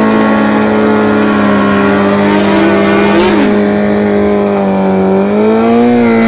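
Nitrous Suzuki Hayabusa drag bike's 1441 cc four-cylinder engine held at high, steady revs during a burnout. The revs sag slightly past the midpoint and climb again near the end.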